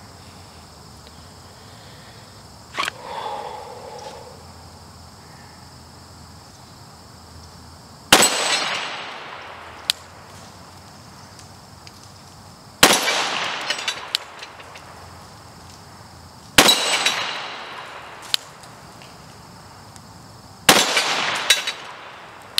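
Glock 41 .45 ACP pistol fired four slow, deliberate shots about four seconds apart, each followed by the ringing clang of the AR-500 steel target being hit. Crickets buzz faintly and steadily underneath.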